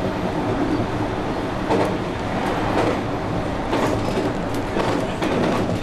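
JR West 221 series electric train running along the track, heard from inside the front car. A steady running rumble is broken by a series of irregular clacks from the wheels.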